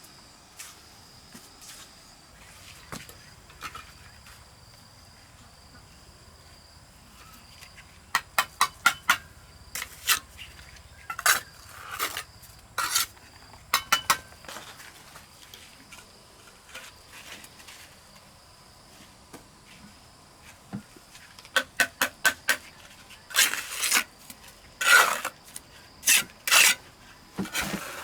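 Bursts of quick clicking and scraping strokes, like a metal hand tool working on brick or mortar, in clusters around 8–15 s and 21–27 s. A steady high insect drone runs underneath.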